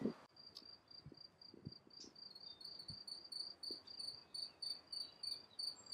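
A cricket chirping in meadow grass: a thin, high, even trill broken into quick pulses, about five a second, that grows clearer after the first couple of seconds.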